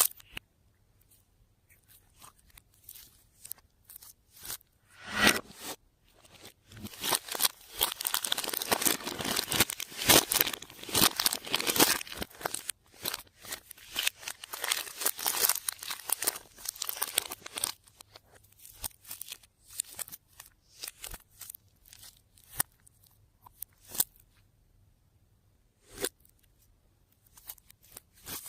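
Close crackling and crinkling of something being handled, a dense run of small clicks and tears for about ten seconds in the middle, then sparser.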